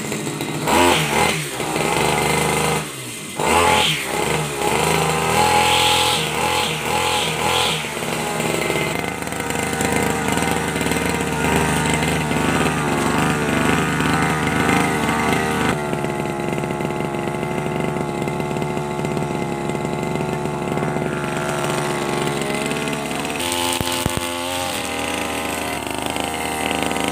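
Two-stroke backpack brush cutter engine running just after a start, revved up and down over the first several seconds with a brief dip about three seconds in, then held at a steady high speed.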